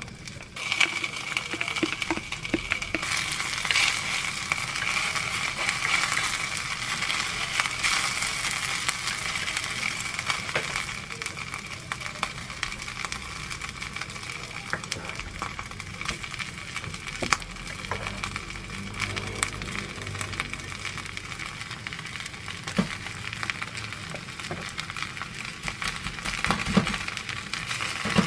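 Rice sizzling and crackling in a hot earthenware ttukbaegi pot over a gas flame. The sizzle starts about half a second in, is strongest for the first several seconds, then settles to a lighter crackle, with a few light knocks near the end.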